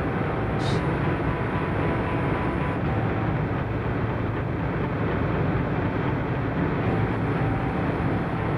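Steady road noise inside a moving car: engine and tyres on a wet road, a dense low rumble with hiss above it. One brief sharp click comes just under a second in.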